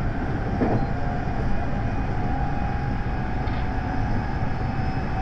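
JR West 223 series electric train running, heard from inside its leading motor car: a steady rumble of wheels on the rails, with a steady high tone joining about a second and a half in.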